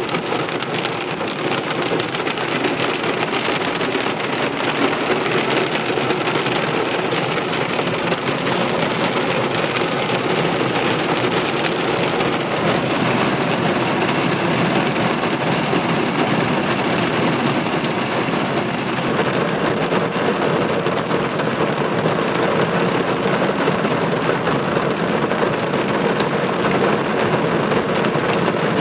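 Heavy rain drumming steadily on a car's roof and windscreen, heard from inside the cabin.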